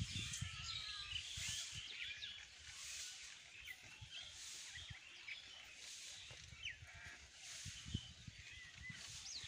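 Open rural ambience with small birds chirping and calling throughout, busiest in the first couple of seconds and again near the end, over soft irregular low bumps.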